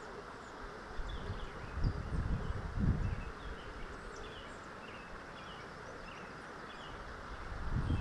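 Outdoor creekside ambience: a steady hiss with scattered faint high chirps, and low rumbles on the microphone about two to three seconds in and again near the end.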